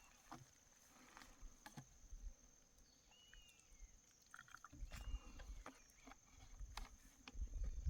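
Faint outdoor ambience: a steady high-pitched drone, typical of insects, with three short high chirps and a few light knocks, and a low rumble of wind on the microphone in the second half.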